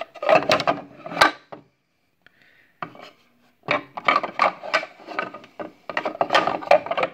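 Two wooden shotgun forend stocks being handled, knocking and rubbing against each other and the window frame in two bouts of clattering and scraping, with a short pause between.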